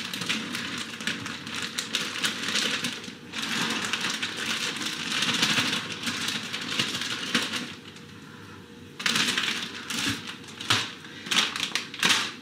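Plastic freezer bag crinkling and rustling as browned ground beef is shaken and squeezed out of it into a slow cooker, with many small clicks and crackles; it eases off for about a second about two-thirds of the way through.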